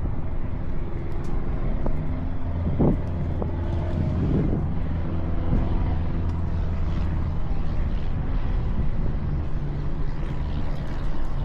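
An engine running steadily at a low, even pitch, with a couple of brief louder sounds a few seconds in.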